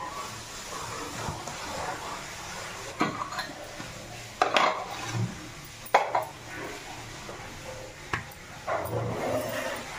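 Steel kitchen utensils and pots clattering as dishes are handled, with four sharp metallic knocks spread a second or two apart.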